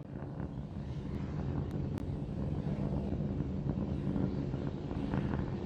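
Steady low rumble of SpaceX Starship SN15's Raptor rocket engines in powered ascent, with two of the three engines still burning after the third has shut down.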